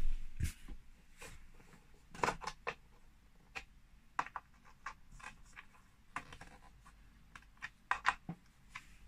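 Light clicks and taps of small assembly hardware being handled and fitted against a particleboard wardrobe panel. A dozen or so sharp, irregular ticks, the busiest runs about two seconds in and again near the end.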